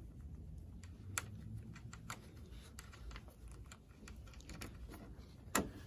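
Scattered light clicks and taps of a screwdriver and screw being handled against a car door, with the sharpest click near the end.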